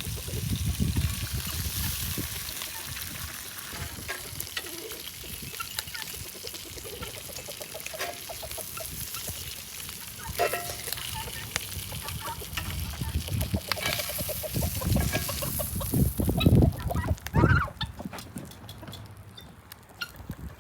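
Farmyard poultry calling in scattered honks and clucks, loudest in a cluster of calls about two-thirds of the way in, over a steady high hiss.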